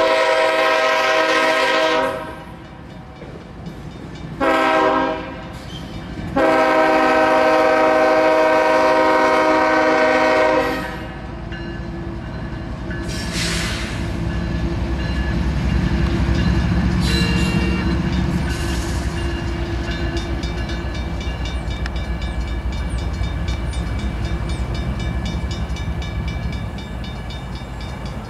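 Union Pacific diesel locomotives' multi-chime horn sounding for a grade crossing: a long blast, a short one, then a long blast of about four seconds. After that, the locomotives' engines rumble steadily past while a crossing bell keeps ringing.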